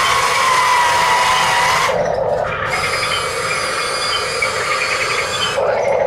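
Small electric motors of Huina radio-controlled construction models whining at a wavering pitch, changing abruptly about two seconds in to a lower, rougher whir.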